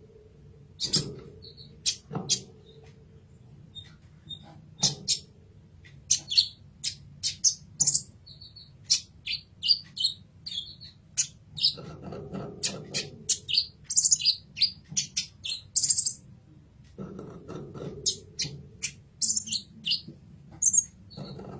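Kolibri ninja sunbird singing as a masteran tutor song: a rapid, irregular string of short, sharp high chirps and twitters. Twice, about twelve and seventeen seconds in, a brief low murmur sits underneath.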